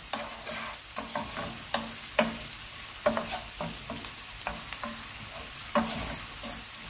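Diced onion and garlic sizzling in oil in a nonstick frying pan while a wooden spoon stirs them. The spoon scrapes and knocks against the pan irregularly, about twice a second, over the steady sizzle of the onions sweating.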